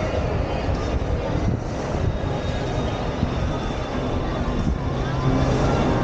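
Shopping-mall walking ambience: a steady low rumble with hiss on the camera's microphones. A faint low hum joins about five seconds in.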